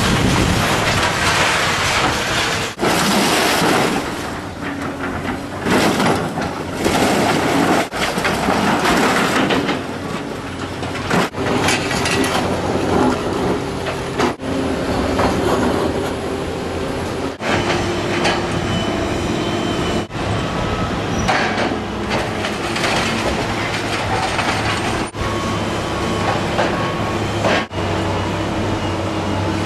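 Diesel hydraulic excavators demolishing a building: a steady engine drone under crashing, scraping debris and squealing, clanking metal.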